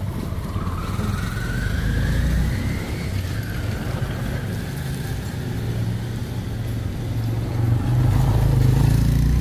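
Motor vehicle engines on the street. One rises in pitch over the first few seconds and then falls away. A louder low engine rumble comes in near the end.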